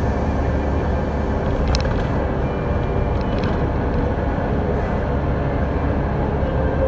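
Steady engine and road noise heard inside a delivery truck's cab while it drives, a low rumble throughout, with a couple of brief clicks near the middle.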